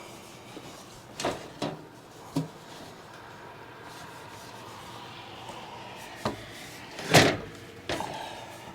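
A handful of separate knocks and clacks of hard objects being handled, the loudest about seven seconds in, over a faint steady hum.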